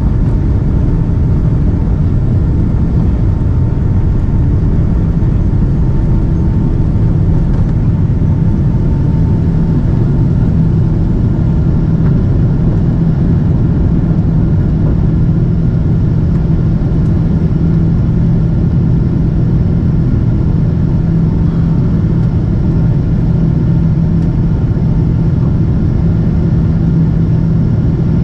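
Steady, loud cabin noise of a Boeing 777-200ER airliner: a low jet-engine and airflow rumble with an even droning hum that holds unchanged throughout.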